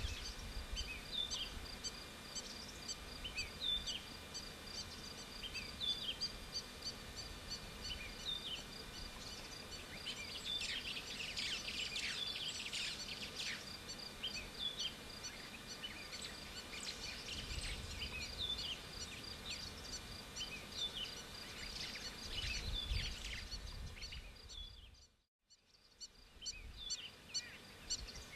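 A chorus of several kinds of birds calling: one bird repeats a short falling call every couple of seconds over a fast, even high twittering, with denser bursts of chirping about ten seconds in and again a little past twenty seconds. The sound cuts out briefly near the end.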